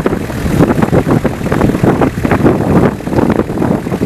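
Lava fountains of a fissure eruption: a loud, continuous low rumble made of rapid, irregular bursts of gas and spatter.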